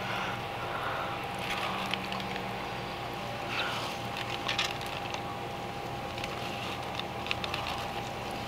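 Gloved hands pulling apart a tender smoked brisket in aluminium foil: soft squishing of the meat and a few short crinkles and clicks from the foil. A steady background hum runs underneath.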